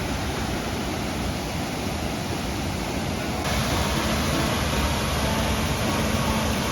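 Waterfall rushing steadily, a dense hiss of falling water, which gets louder about halfway through.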